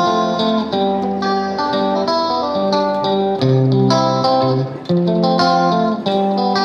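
Instrumental background music of plucked strings, a run of separate notes over lower held tones.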